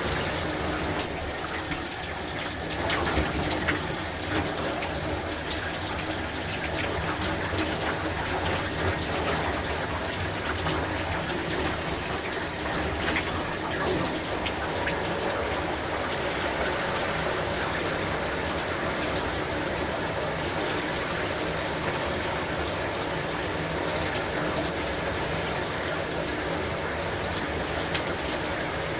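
Shower spray running steadily, water splashing and pattering on a person and the shower floor, with a few louder splashes and knocks early on and about halfway.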